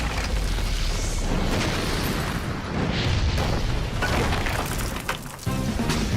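Cartoon battle sound effects: a dense run of booms, blasts and whooshes over a music score. About five and a half seconds in the effects drop away and held musical chords take over.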